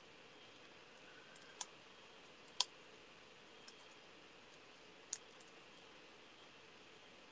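Faint, scattered clicks and ticks of fingers handling tiny foam adhesive pads and peeling off their paper backings, about six in all, the sharpest about two and a half seconds in, over a low steady hiss.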